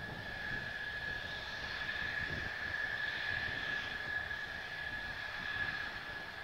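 Mitsubishi F-2's F110 turbofan engine at taxi power: a steady high-pitched jet whine over a low rumble.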